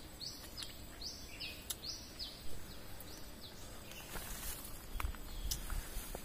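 Outdoor forest ambience with a high chirping call repeated about twice a second, which stops about halfway through. Later comes a brief rustle and a few low bumps.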